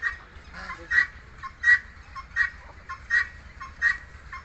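A bird giving a steady series of short, harsh calls, about one every two-thirds of a second.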